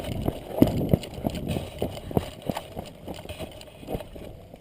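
Footsteps of a person running, a quick irregular patter of thuds that grows fainter toward the end.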